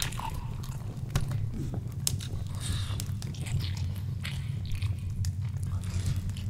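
Foley of someone biting and chewing meat off a drumstick: a run of short, irregular clicks and crunches over a steady low hum.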